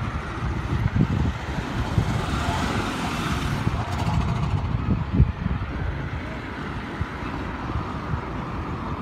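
Cars passing along a city street, one swelling loudest about three seconds in, with wind rumbling on the phone's microphone.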